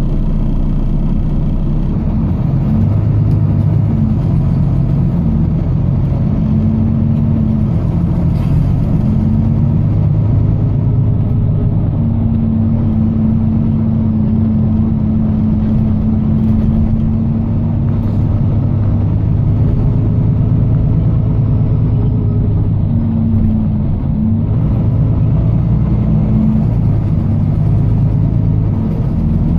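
Volvo B9TL double-decker bus's diesel engine running under way, heard from inside the bus: a steady low engine drone whose note holds, then drops away and comes back several times as the bus pulls, eases off and pulls again.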